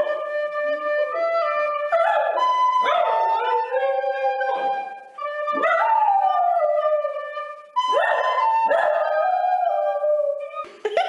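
A poodle howling along to music: long wavering howls, several sliding down in pitch, over held instrument notes.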